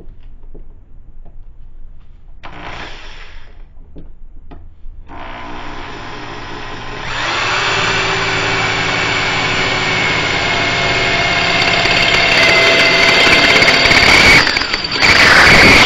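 Electric drill with a small bit running against 1/8-inch steel plate: the motor whine starts about five seconds in, gets louder about two seconds later and holds steady, with a harsher, louder grinding near the end. The bit is not cutting well into the steel.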